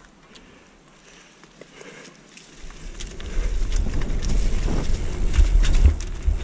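Knolly freeride mountain bike rolling down a dirt trail, its tyres giving faint clicks and crunches at first; from about two and a half seconds in, wind buffeting the camera microphone rises into a loud rumble as speed builds.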